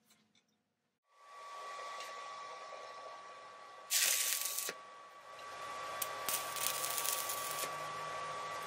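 Arc welding a steel pipe to a steel base plate: after about a second of quiet, a steady hiss with a constant high whine starts, a loud burst of arc crackle comes about four seconds in, and a continuous crackling, spitting arc runs from about six seconds on.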